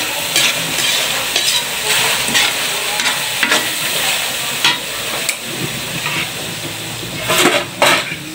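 Scallops in coconut-milk sauce with water spinach sizzling and spattering in a pan while a spatula stirs them, scraping and tapping against the pan at irregular intervals, with the loudest scrapes near the end.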